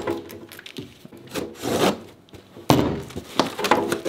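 Cardboard box being cut open with a box cutter: the blade scraping along the packing tape, a sudden loud tear a little past halfway, then the cardboard flaps rubbing and rustling as they are pulled open.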